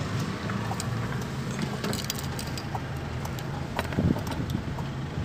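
Toyota car engine idling steadily, heard from inside the cabin, with small clicks and rattles over it.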